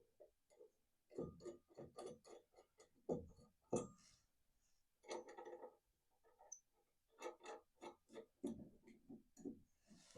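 Faint, scattered clicks and light knocks, irregular and a fraction of a second each, from hand work fitting the old iron piece to the wood.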